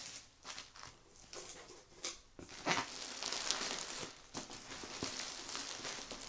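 Packaging being handled during unboxing: irregular crinkling and rustling with scattered clicks, sparse at first and busier and louder from about two and a half seconds in.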